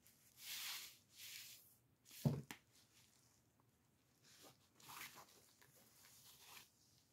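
Fabric-covered handmade junk journal being handled: two soft rustling swishes, then a short dull thump with a light click just after it, a little over two seconds in, and fainter rustles of the cloth cover and tie later on.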